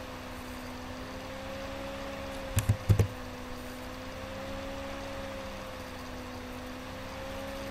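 Two quick double-clicks of a computer mouse about two and a half seconds in, opening a downloaded installer, over a steady hum with a slowly wavering whine.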